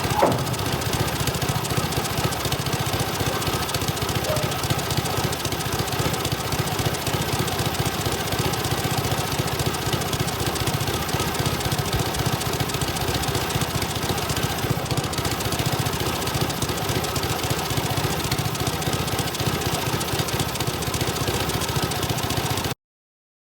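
Twin-cylinder motorcycle engine running steadily, with the left cylinder misfiring by the owner's account after a carburettor change. It cuts off suddenly near the end.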